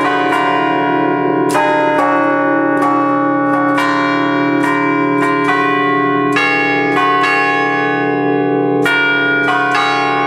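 Five church bells in D-flat, cast by the Ottolina brothers in 1932, played from a baton keyboard (tastiera): a quick tune of single strikes, about two or three a second, each bell ringing on under the next.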